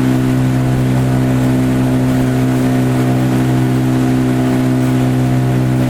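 A motor running steadily at one constant pitch, a loud even drone.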